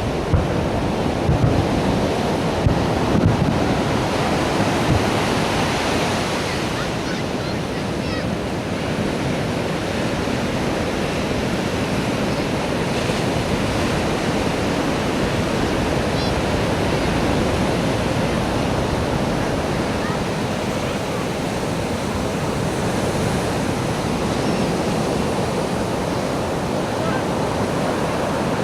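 Fireworks booming about five times in the first few seconds, over a steady rush of surf and wind noise on the microphone that carries on after the booms stop.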